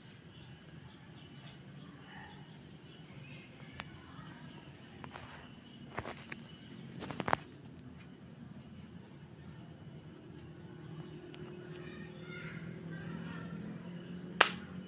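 Outdoor ambience with faint, repeated high chirps in the background and a few sharp knocks, the loudest near the end.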